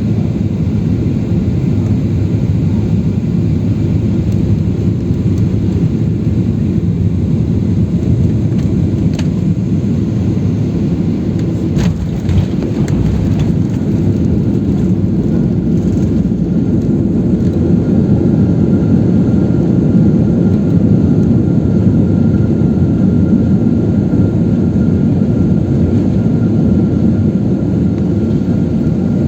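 Steady jet engine and airflow noise heard inside an airliner cabin around landing. There is a brief clunk about twelve seconds in, and a faint thin whine comes in over the second half.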